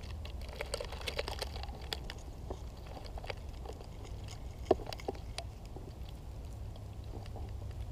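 Short-beaked echidna foraging for ants, its snout working in dry grass and an old log: irregular small crackles, scratches and rustles with a sharper click about four and a half seconds in, over a steady low rumble.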